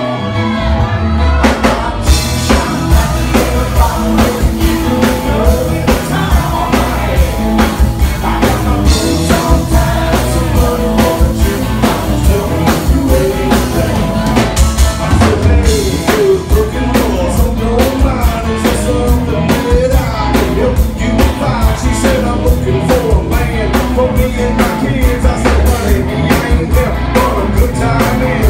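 Live band playing loud, close to the stage: a male lead vocalist singing into a microphone over a drum kit and electric guitar. The drums pick up about two seconds in and keep a steady beat.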